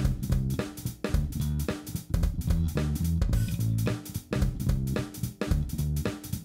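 Background music: a drum kit keeps a steady beat over a bass line.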